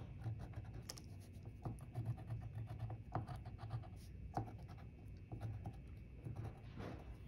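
Colored pencil scratching on watercolor paper in short, irregular strokes, faint against a low steady hum.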